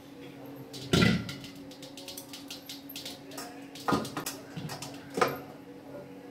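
Knocks and clicks of an enamel wok and its detachable clip-on handle being handled on a counter: a loud knock about a second in, two more near the end, and small clicks between, over a faint steady hum.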